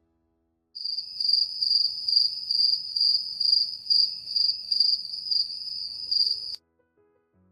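Cricket chirping, used as a sound effect: a high, steady trill that pulses about twice a second. It starts about a second in and cuts off abruptly near the end.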